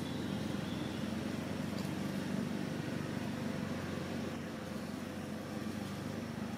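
Steady low rumble with a faint hum, even and unchanging throughout.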